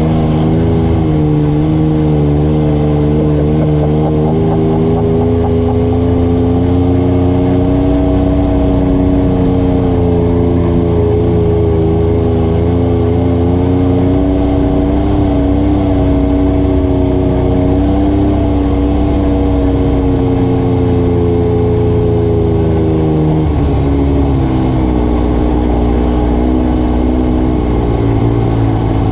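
ATV engine running continuously, its pitch slowly rising and falling with the throttle, then dropping a few seconds before the end.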